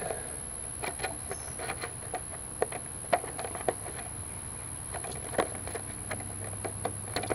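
Light, irregular plastic clicks and taps of a forestry helmet's face-shield visor being handled and adjusted, over a low steady hum.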